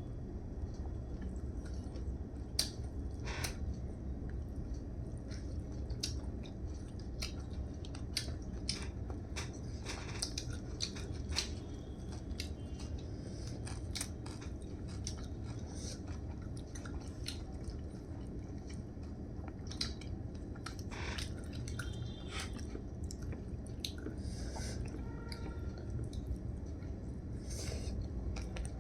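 A person eating close to the microphone: chewing with wet mouth sounds and scattered short clicks, over a steady low hum.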